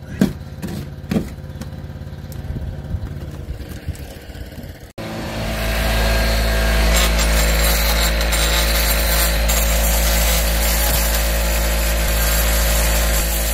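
A few scattered knocks and clicks of hand work. Then, from about five seconds in, an oscillating multi-tool runs steadily, its saw blade cutting along a seam in a fibreglass boat hull.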